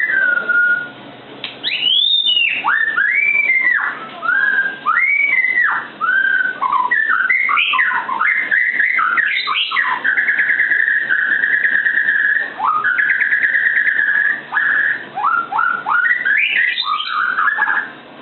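White-rumped shama (murai batu) singing: a run of clear whistled phrases that rise and fall, then a buzzy, rattling note held for about four seconds in the middle, then quick rising whistles again near the end.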